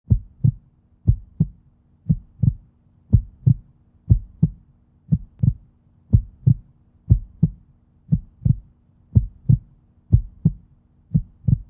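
Heartbeat sound effect: pairs of deep thumps in a steady lub-dub rhythm, about one pair a second, over a faint low hum.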